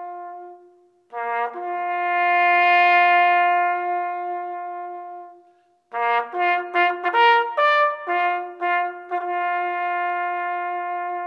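A bugle plays a slow call of long held notes with brief breaks between phrases. About six seconds in comes a quick run of short notes before it settles back onto held notes.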